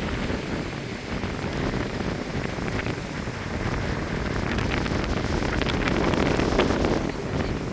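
Strong gusty wind rushing and buffeting the microphone, swelling louder about five seconds in.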